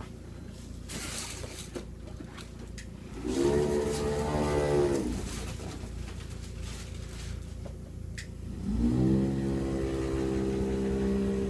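A small electric motor humming twice: a burst of about two seconds starting three seconds in, rising in pitch as it starts and falling as it stops, then starting again near nine seconds and running steadily.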